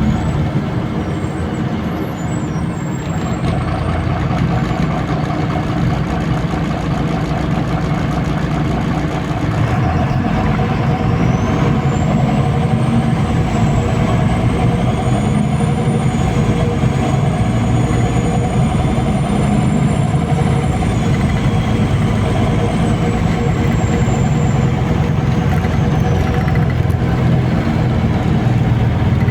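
MAZ-203 city bus heard from inside while under way: steady engine and running noise. About ten seconds in a thin high whine rises, holds, then falls away near the end.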